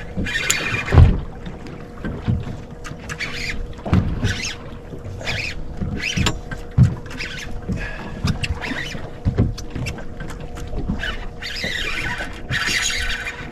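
Small boat on the water: irregular knocks and thumps against the hull, with several bursts of splashing hiss and a faint steady hum underneath.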